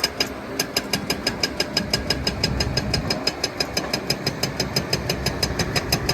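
Heavy diesel engine of the excavator or dump truck running steadily with an even, rapid clatter, about eight ticks a second.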